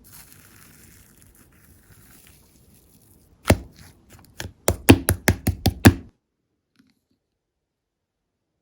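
Marbled slime being pressed and handled: a faint soft rustle, then one sharp pop followed by a quick run of about eight pops and clicks that stops suddenly.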